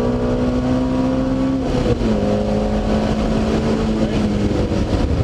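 Car engine under hard acceleration, heard from inside the cabin over wind and road noise. Its pitch climbs, drops in a step about two seconds in as it shifts up a gear, then holds as it keeps pulling.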